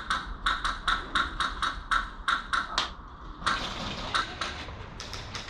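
Airsoft gun firing rapid single shots, about four a second for nearly three seconds, then more shots after a short pause.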